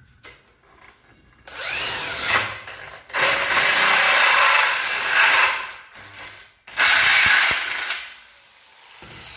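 Power drill with a hinge-boring bit cutting cup holes for concealed (auto) hinges in a door, run three times: the first run starts with a rising whine, and the middle run is the longest.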